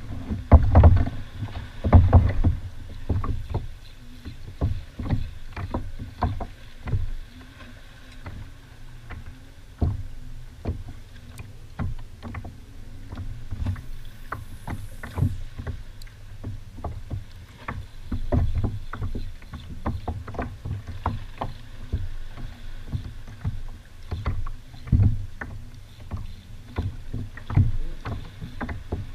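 Irregular knocks and small splashes of water against a Malibu sit-on-top kayak's hull as it rides on open water, over a steady low rumble. The loudest knocks come about a second and two seconds in, and there is a brief hiss about halfway through.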